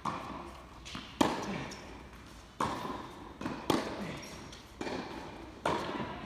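Tennis rally on an indoor hard court: a tennis ball struck by racquets and bouncing off the court, a string of sharp pops and thuds about once a second, the louder racquet strikes ringing out in the echoing hall.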